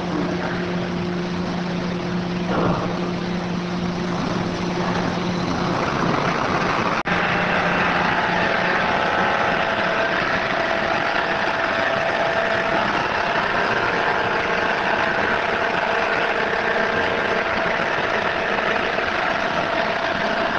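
Bulk bag unloading machinery running steadily with a low hum. About seven seconds in the sound cuts out for an instant and comes back as a different, higher-pitched steady hum.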